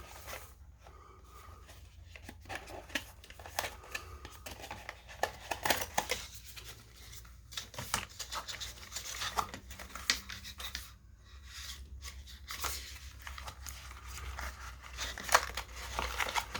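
Hands working at a watch's cardboard box and packaging insert: irregular scrapes, rustles and small clicks of cardboard and plastic being handled and pulled.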